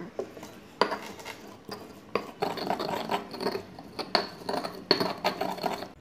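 Stone pestle grinding and scraping wet chili sambal in a stone mortar (cobek), with about four sharp knocks of stone on stone between rough rubbing strokes.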